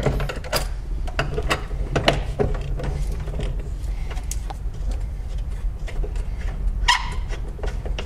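Socket wrench backing out a seat belt anchor bolt that is stuck with threadlocker: a run of irregular clicks and brief squeaks as the bolt turns out, over a steady low hum.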